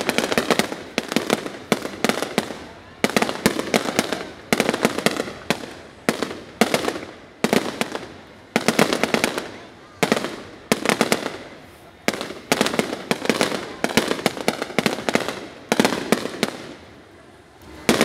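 Fireworks bursting in rapid succession. Each salvo is a cluster of sharp bangs and crackles, and a new one comes about every second or so. They ease briefly near the end before a loud burst.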